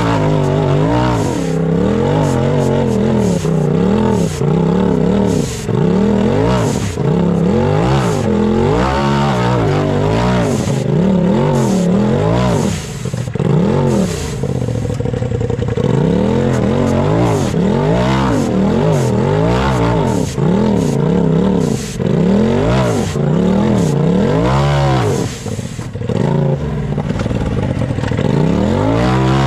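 Race UTV buggy's engine revving up and dropping back again and again in short throttle bursts as it climbs over rocks, heard from on board, with knocks and clatter from the chassis.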